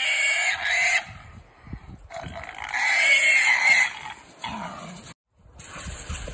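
Trapped feral hog squealing: three loud, high-pitched squeals in the first four seconds, the last and longest lasting over a second.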